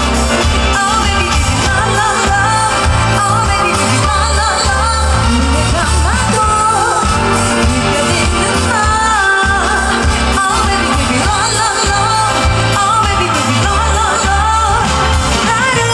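A female singer singing a pop song live into a handheld microphone over a band accompaniment with a heavy, pulsing bass beat, played through a concert sound system.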